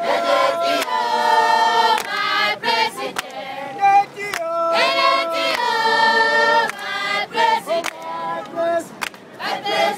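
A crowd of people singing together as a choir, with long held notes sung by many voices and short breaks between phrases.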